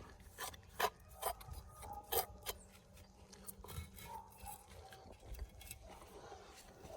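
Faint scraping and clicking of a trowel working mortar on bricks during bricklaying: several sharp scrapes and taps in the first few seconds, quieter after.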